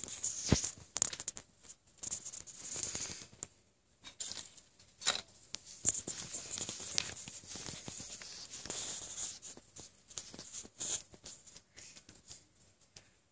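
Irregular rustling and scraping with scattered sharp clicks, the handling noise of a phone being held and moved close over paper, dying down near the end.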